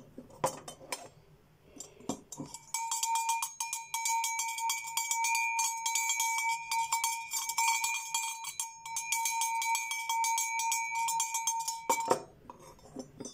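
Small metal hunting-dog bell of the cowbell type, with a woodcock emblem, shaken fast by hand: a few loose knocks of the clapper, then a quick steady clanking over a clear ringing tone. About a second before the end it stops with a knock as the bell is set down.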